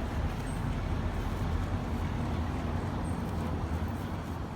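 Steady low rumble of a vehicle in motion, with two faint brief high chirps.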